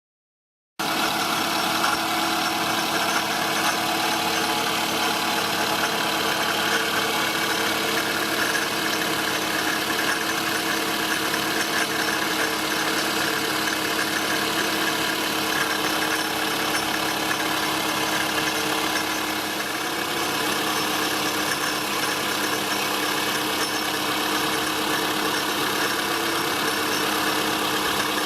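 Toyota Estima ACR30's 2.4-litre four-cylinder engine idling steadily, with a 'shaka-shaka' rattle from the accessory drive that starts suddenly about a second in. The noise comes from a worn pulley and belt tensioner together with a failed, oil-leaking air-conditioning compressor.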